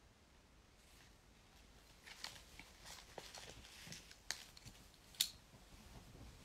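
Faint, irregular clicks and taps close to the microphone, with two sharper clicks about four and five seconds in, over quiet room tone.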